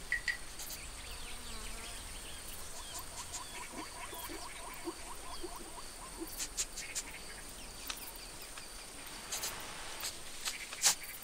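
Insect background ambience: a steady high buzz with a string of faint chirps and scattered soft clicks.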